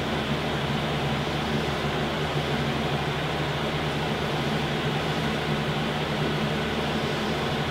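Steady machine hum with an even hiss, unchanging in level, as from a running fan or air-conditioning unit.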